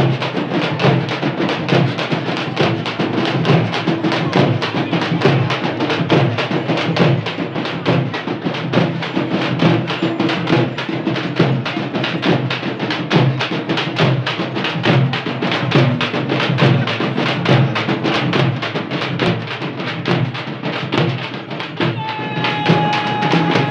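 Frame drums beaten by hand in a fast, steady, driving rhythm, with crowd voices underneath. Near the end a shrill steady tone sounds over the drumming.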